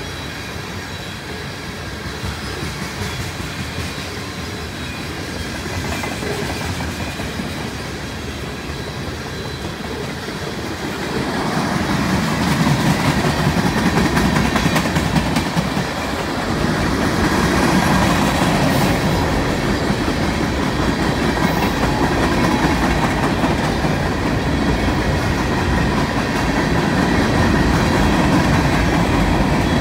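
Freight train cars rolling past: steel wheels rumbling and clicking over the rail joints, getting louder about eleven seconds in and staying loud.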